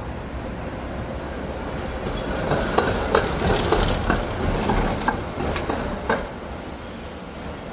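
Articulated street tram passing close by: a steady rumble of running, with a run of sharp clicks and knocks in the middle as its wheels cross rail joints, loudest as it goes past and fading towards the end.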